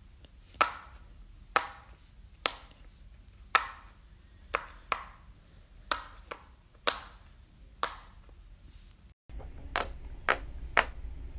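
Silicone Pop It fidget toy bubbles being pushed through one at a time, each giving a short, sharp pop, about one a second, a dozen or so in all.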